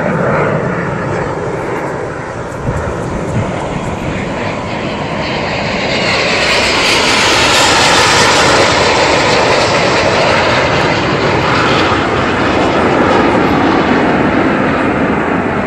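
Jet noise from low-passing Aermacchi MB-339 single-turbojet aerobatic jets: a dense rushing sound that swells about six seconds in, is loudest around eight seconds, and stays strong afterwards.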